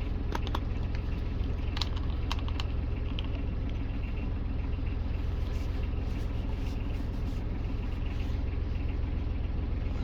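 A few light clicks and taps of small objects being handled, most of them in the first three seconds, over a steady low rumble.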